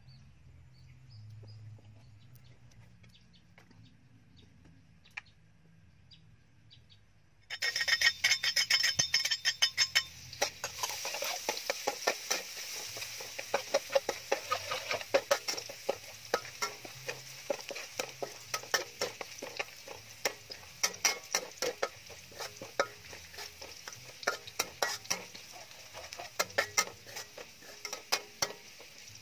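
Chopped garlic frying in hot oil in a metal wok, starting to sizzle suddenly about seven seconds in, with a metal spatula scraping and clinking against the pan many times as it is stirred.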